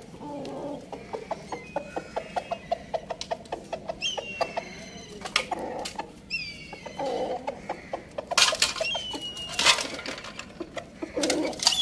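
Chickens pecking grain from a metal pan: a rapid run of light beak taps on the metal, with several short, falling, high-pitched calls from the birds and a few louder scuffles near the end.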